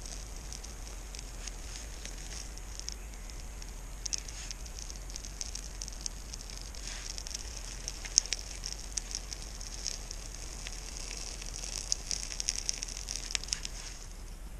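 Newly lit tinder fire of birch bark and small twigs crackling and hissing as it catches, with sharp pops that come thickest about eight seconds in and again near the end. The crackling then falls away suddenly.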